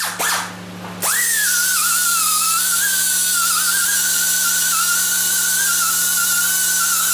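Right-angle die grinder with a small disc, grinding the paint off a cracked steel front-axle knuckle to clear the area for welding. Its whine falls away at the start, then about a second in it is run up again and holds a steady high-pitched whine.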